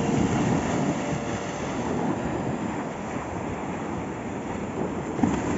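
Small surf waves breaking and washing up a sandy beach, with wind buffeting the microphone.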